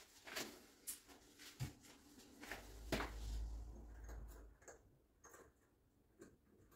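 Faint, scattered metal clicks and light taps as chrome lever handles are fitted onto shower tap spindles and tightened with a small tool. A low rumble lasts about two seconds in the middle.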